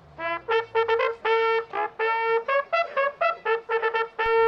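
Two brass hunting horns playing a horn call: a quick run of short notes, many of them on the same repeated pitch.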